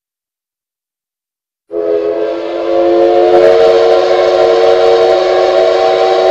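Steam whistle sound effect: several steady tones sounding together over a hiss, starting suddenly about two seconds in and held. It is dubbed over the misting ultrasonic humidifier, which in reality makes no sound.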